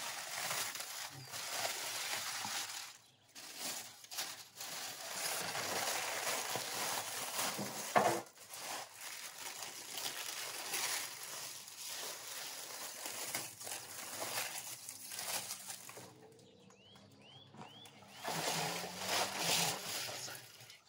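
Aluminium foil and baking paper crackling and tearing as they are pulled off whole roasted beef ribs, a dense crinkling with sharp rips. It eases off about three-quarters of the way through, when a bird chirps three times, then the crinkling comes back briefly near the end.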